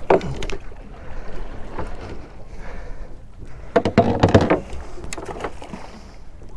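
Knocks and clatter of gear being handled on a small boat, loudest about four seconds in, over steady water and wind noise.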